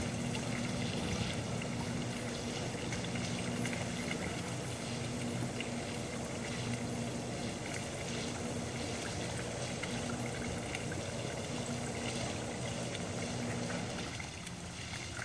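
Steady splashing of water spilling from a spa spillway into the pool, with a low electric motor hum from motorized zipper-track solar screens lowering, which stops about a second before the end.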